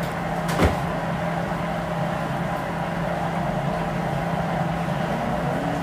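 A steady machine hum with one short, sharp click about half a second in.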